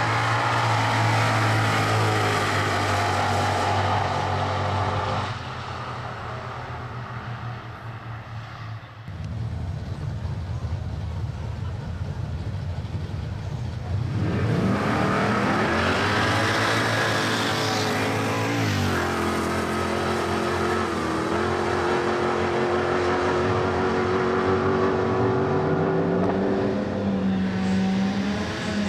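Drag-racing cars at full throttle on a drag strip. At first a Holden Commodore's engine holds a high, steady note, dropping away about five seconds in. Later, two cars launch together off the start line, their engine notes rising in pitch through several gear changes before settling to steadier tones.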